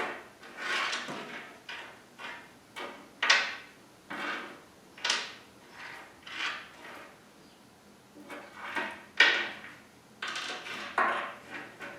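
Tool parts and packaging being handled and set down: a string of about a dozen irregular clunks, knocks and rustles.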